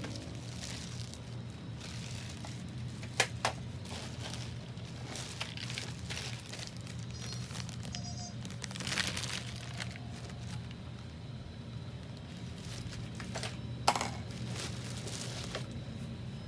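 Clear plastic wrapping crinkling and rustling as it is handled and pulled back, with two sharp knocks, one about three seconds in and one near the end, over a steady low hum.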